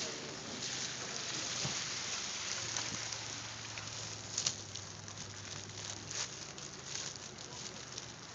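Plastic wrapping on furniture crinkling and rustling as it is pushed into a minivan, a steady crackle of small ticks with a couple of sharper knocks about four and a half seconds in.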